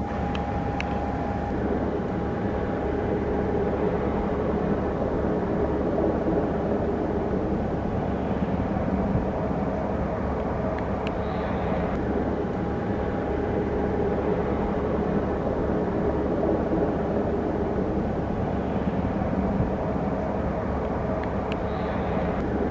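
IAR 330 Puma helicopter running while it hovers low: a steady turbine whine over a constant low rumble from the rotors.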